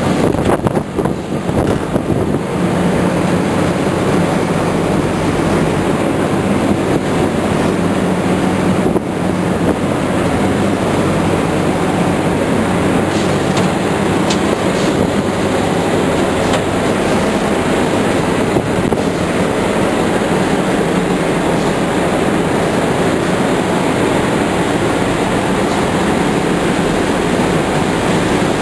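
Engines running steadily: an even, loud machinery noise with a low hum beneath it.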